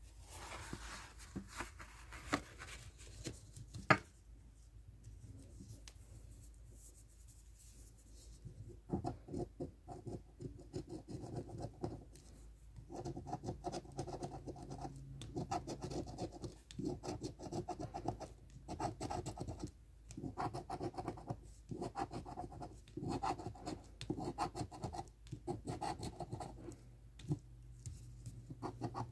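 A large metal coin scraping the scratch-off coating from a lottery ticket in quick strokes, in bursts with brief pauses. Light scraping at first, a sharp tap about four seconds in, a few quieter seconds, then steady, denser scratching from about eight seconds on.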